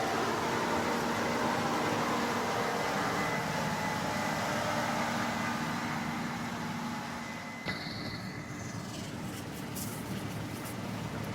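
Case IH 8250 combine harvester running steadily at work, a machine drone with several steady tones. It drops off somewhat about two thirds in, at a single click.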